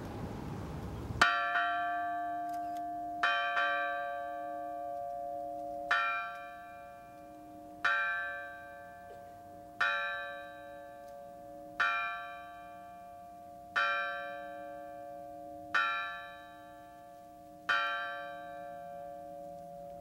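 A large fire bell tolled slowly as a memorial salute: nine strokes about two seconds apart, each ringing on and fading away, the first the loudest.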